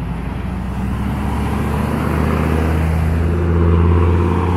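Car engine and road noise: a steady low engine hum that grows gradually louder.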